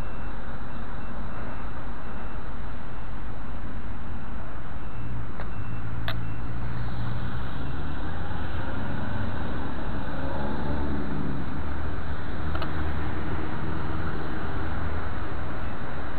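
A road vehicle's engine drones past, its low hum slowly shifting in pitch, over a steady rush of noise. There are two sharp clicks, about 6 and 12.5 seconds in.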